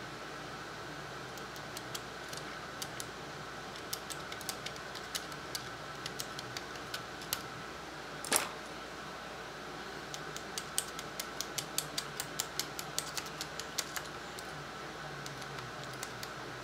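Small hand tools clicking against metal parts set in a rifle's wooden buttstock, with one louder knock about eight seconds in. From about ten seconds on comes a run of quick, even light taps, about three a second, as a part is tapped down into the stock.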